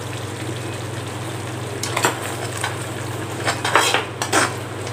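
Stainless steel ladle stirring and scraping a thick simmering gravy in a metal kadai, over a steady sizzle. Several short scrapes and clinks of the ladle against the pan come in the second half.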